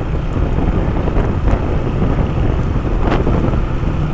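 Heavy wind buffeting the microphone while riding, over the low steady running of a motorcycle engine.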